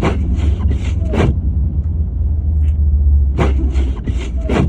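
Low steady rumble of a car, with two short bursts of scraping or crunching about three seconds apart, each ending in a brief squeak.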